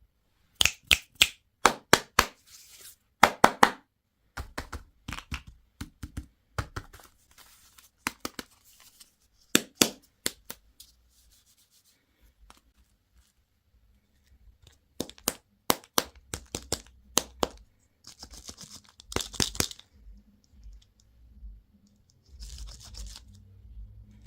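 Candy and toy packaging being unwrapped and opened by hand: clusters of sharp clicks and tearing crackles, a quiet spell about halfway through, then more clicking and brief crinkling.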